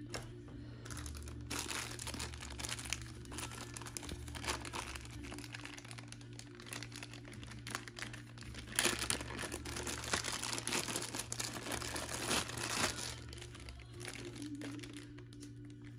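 Clear plastic packaging bag crinkling as hands open it and handle what is inside, most intense a little past the middle.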